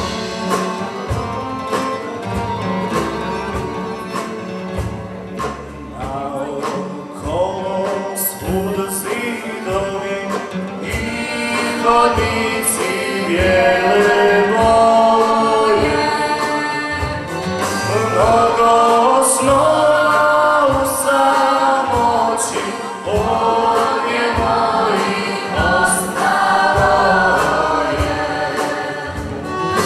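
Bosnian sevdah song performed live: a young man sings solo into a microphone over a folk ensemble of strummed guitars, violin and accordion. The music swells louder about twelve seconds in.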